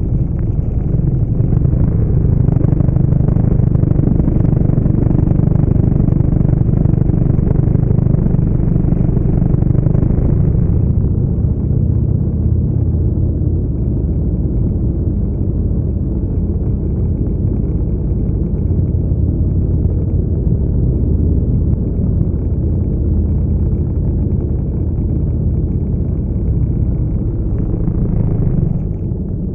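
Several motorcycles running at low speed in a group, a steady low engine rumble. A higher rushing noise over it drops away about ten seconds in.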